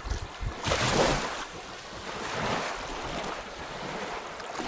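Small waves washing onto the shore, surging about a second in and again near the middle, with wind rumbling on the microphone.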